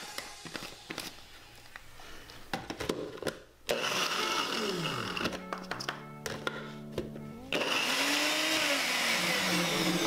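Personal bullet-style blender's motor whirring, starting suddenly about four seconds in and loudest over the last few seconds, with background music over it.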